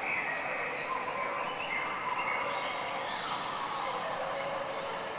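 Steady outdoor ambient hiss, with a few faint short calls in it.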